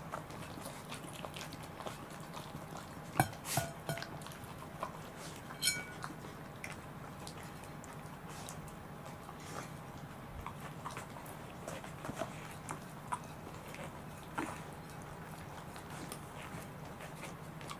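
Two Welsh corgis licking crumbs off plates, with scattered small clicks and clinks as the plates shift and knock on the floor. A few louder knocks come about three to six seconds in.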